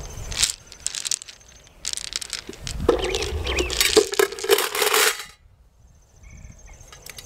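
Smooth rocks poured from a cloth bag into a stainless steel Zebra pot, clattering against the steel and against each other. The clatter starts about two seconds in, runs for about three seconds, and stops.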